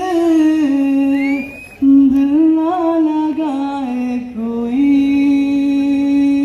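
A male voice singing into a microphone, drawing out long held notes with slow bends and ornaments. The voice breaks off briefly about one and a half seconds in, then carries on.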